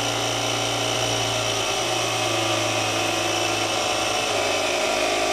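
Built-in 12-volt air compressor of a Vevor cordless electric car jack running steadily, inflating a car tyre from about 26 to 30 PSI.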